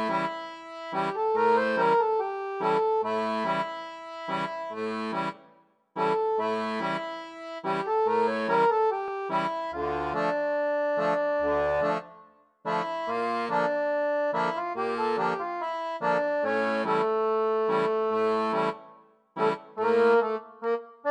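Instrumental background music: a melody over repeating chords, pausing briefly about five and twelve seconds in and again near the end.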